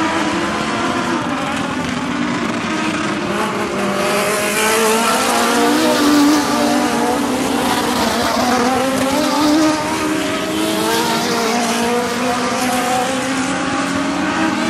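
Several race car engines revving together as the cars circle the track. The pitch of each engine rises and falls as they pass. The sound is a little louder between about four and ten seconds in.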